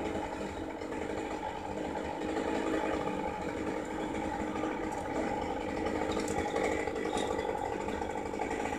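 An engine idling steadily, giving an even drone with no revving.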